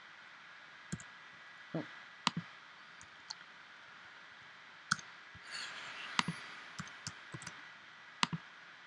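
Irregular clicks and taps from a computer keyboard and mouse while code is being edited, about a dozen separate sharp clicks at uneven spacing. A brief soft hiss comes about five and a half seconds in.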